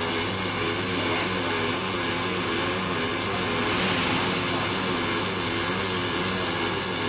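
Robotic MIG welding arc running steadily, a continuous hiss and buzz over a low steady hum.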